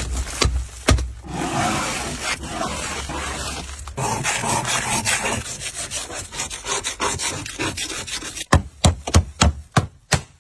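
Rasping of a hand tool worked over a surface in steady strokes for several seconds, with a few sharp knocks at the start and a quick run of sharp knocks, about five a second, near the end.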